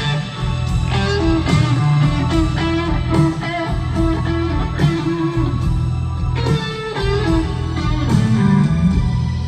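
Live rock band playing an instrumental passage, led by an electric guitar solo of held, bending notes over bass and drums.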